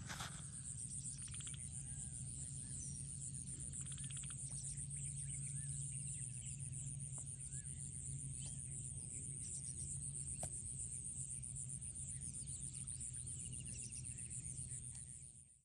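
Outdoor rural ambience: birds chirping and trilling now and then over a steady high-pitched buzz and a low rumble, fading out at the very end.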